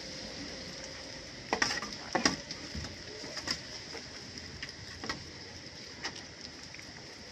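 Etawa goat kid chewing a piece of banana: a few sharp, wet clicks and crackles, the loudest about one and a half to two and a half seconds in, over a steady high hiss.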